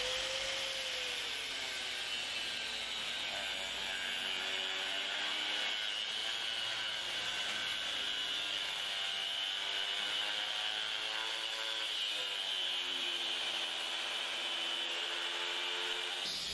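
Angle grinder with a thin cut-off disc cutting through a flat steel bar: a steady high whine over a grinding rasp. The motor's lower tone sags and recovers as the disc bites into the metal.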